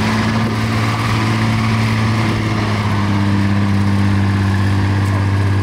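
Vintage saloon car's engine running at steady low revs as the car drives slowly past, its pitch holding nearly constant.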